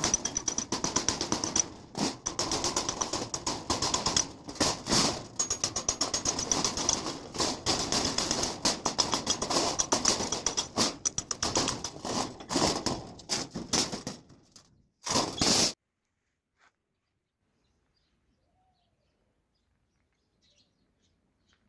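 Dense, rapid, irregular crackling made of many sharp strokes, stopping abruptly about fifteen seconds in and followed by near silence.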